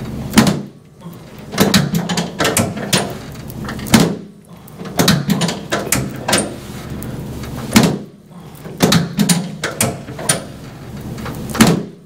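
Chiropractic drop table's section snapping down under a series of sacral drop thrusts: a run of sharp clunks and knocks, some single and some in quick pairs, roughly every one to two seconds.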